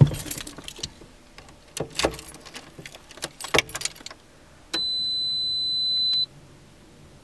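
Car keys jangling and clicking in the ignition as the key is turned on, followed by a steady high-pitched electronic beep lasting about a second and a half.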